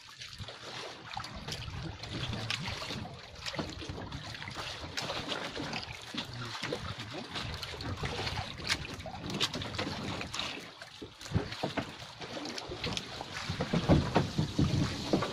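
Water lapping and splashing against the side of a small outrigger fishing boat, with scattered knocks and clicks from handling over the gunwale and wind on the microphone. The knocks and splashes grow busier and louder near the end.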